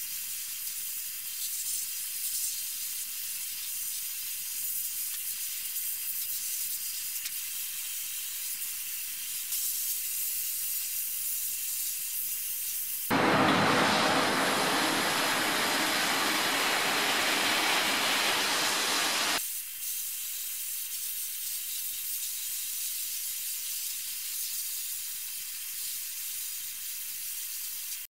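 Abrasive blasting nozzle spraying medium-grit glass media onto a steel car body shell: a steady hiss. It is thin and high for most of the stretch, then turns full and much louder about halfway through for some six seconds before thinning again.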